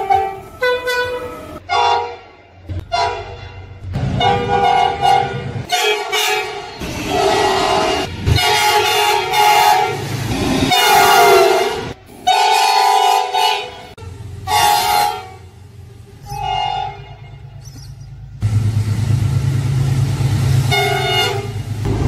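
Horn of a 2800 class freight locomotive sounding a long string of blasts, some short and some drawn out, several notes sounding together. From about two-thirds of the way through, the low rumble of the locomotive and its train running past takes over, with one more blast near the end.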